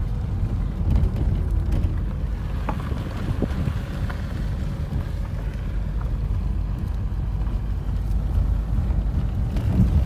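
Car driving slowly along a gravel dirt road: a steady low rumble of engine and tyres on the track, with some wind noise.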